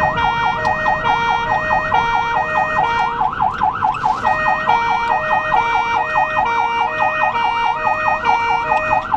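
Ambulance siren sounding without a break: a fast rising-and-falling yelp, with an alternating high-low two-tone note over it that drops out for about a second partway through.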